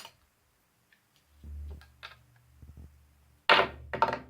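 Handling noises of folded paper slips in a cup: light clicks and ticks with a low rumble, then a few loud, short rustles near the end.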